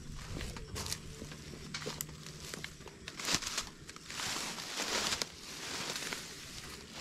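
Plant leaves and stalks rustling and tearing as a plant's heart is pulled out by hand, in several short crackly bursts with a longer rustle about four to five seconds in.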